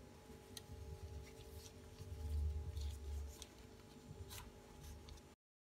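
Faint rustling and soft handling of a raw puff pastry sheet as it is unrolled and pressed down over the filling in a glass baking dish. A low dull bump from the hands pressing comes about two seconds in. The sound cuts off abruptly near the end.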